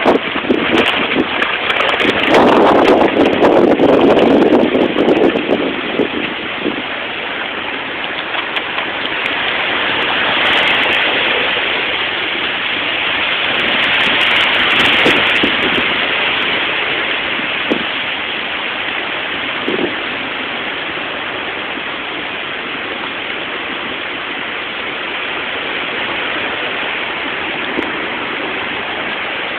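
Hurricane wind and heavy rain: a steady rushing noise. A gust buffets the microphone a few seconds in, and the rush swells twice more later on.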